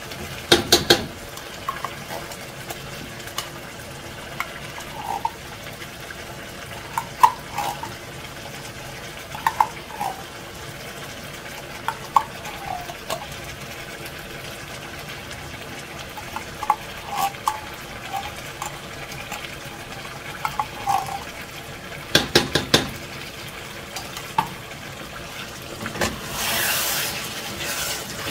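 Metal spoon scraping tomato paste out of a tin can into a pot, with short squeaky scrapes and sharp clinks of metal on the can and pot, clustered just after the start and again about 22 seconds in. Near the end there is a short burst of stirring as the food is turned in the pot.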